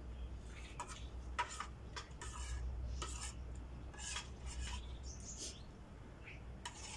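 Spoons and forks clinking and scraping against plates as two people eat, a string of short irregular clinks over a steady low hum.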